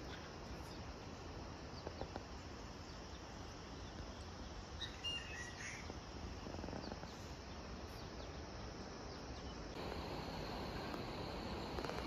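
Rural outdoor ambience: a steady background hiss with insects and a brief bird chirp about five seconds in. Near ten seconds the background shifts and a steady high insect drone sets in.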